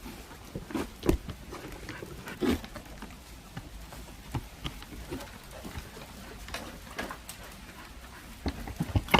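Dogs making short vocal sounds among scattered sharp clicks and knocks, with several clicks close together near the end.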